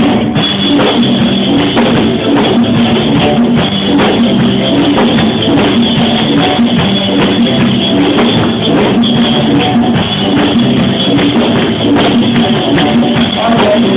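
Live worship band playing a rock-style song, with drum kit and guitars, loud and steady throughout.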